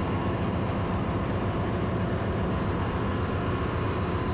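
Steady drone of running machinery in a ship's engine room: a constant low hum with a faint, steady high-pitched whine over it.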